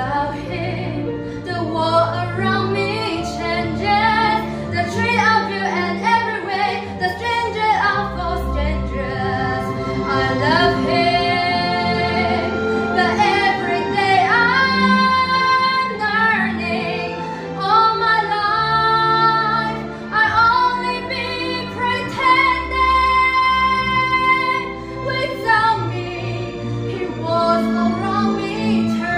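A young woman singing with full voice over backing music, with several long held high notes with vibrato.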